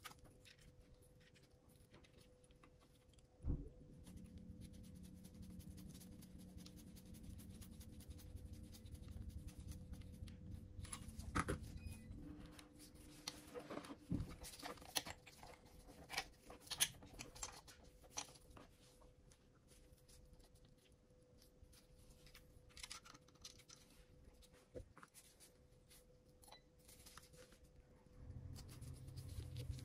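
Small clicks, ticks and taps of tools working on tiny drone parts, with a thump about three and a half seconds in and a low steady hum for several seconds after it.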